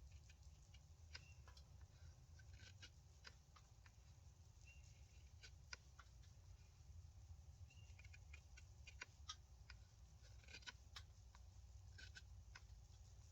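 Near silence: a faint low rumble with scattered small ticks and a few short, high chirps.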